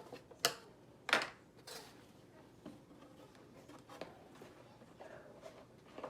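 Toys and packaging being handled: a few sharp clicks and rustles, the loudest about a second in, then softer scattered rustling.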